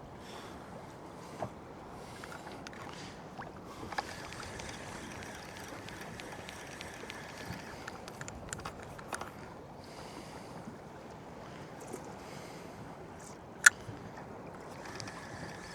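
Steady wash of water and wind around a small drifting fishing boat, with a few light clicks and one sharp, loud click near the end.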